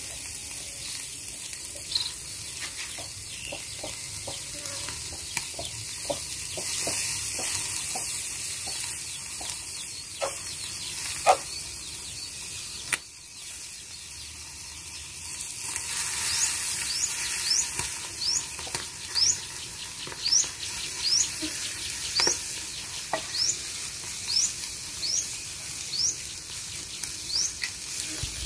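Armored catfish sizzling on a grill as chili sa tế sauce is brushed on, with scattered clicks and taps from the basting. From about halfway through, a bird chirps in short rising notes, roughly one a second.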